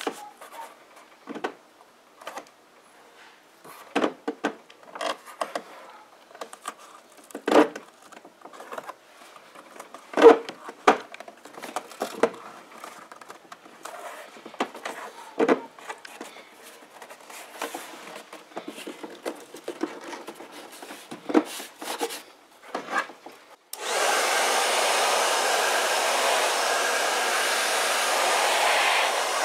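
Leather being pressed, pulled and smoothed by hand over a car door panel, with scattered irregular creaks, taps and rustles. About 24 seconds in, a handheld hair dryer switches on abruptly and runs steadily, blowing onto the leather.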